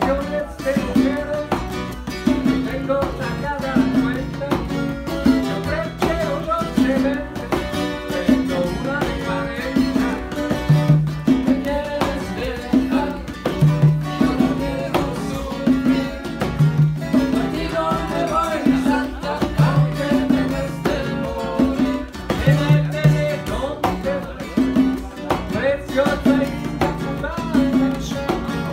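Nylon-string guitar, Cuban tres and a pair of congas playing Cuban son music live, with a steady repeating bass pattern.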